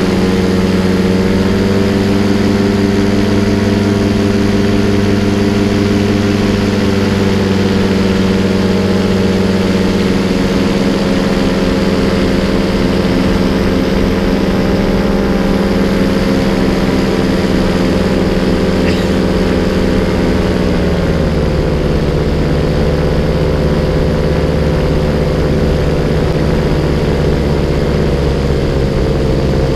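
Paramotor engine and propeller running steadily in flight, close to the microphone; the pitch drops a little about two-thirds of the way through as the throttle is eased, then holds steady.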